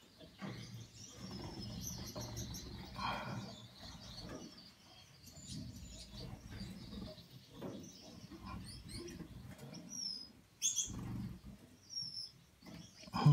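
Gouldian finches giving scattered short, high chirps, over the low rustle and rubbing of fingers handling a nestling while working a closed band onto its leg.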